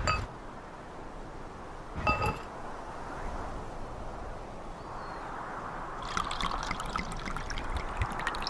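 Wine glasses set down upside down on stone: a ringing glass clink right at the start and another about two seconds in. From about five seconds in, red wine pouring from a bottle, splashing and trickling onto glass.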